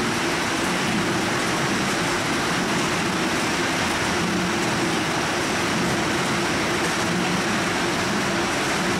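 Steady mechanical din of a citrus packing line: a Vizier citrus sizer's chain conveyor and fruit lanes running, with a low steady hum under the noise.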